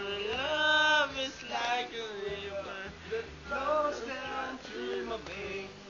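A man singing karaoke, holding long, wavering notes, with faint backing music underneath.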